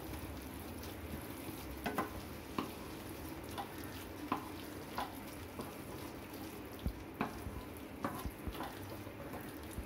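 Wooden spatula stirring onion-tomato masala in a non-stick kadai, scraping and knocking against the pan about once or twice a second over a faint, steady frying sizzle.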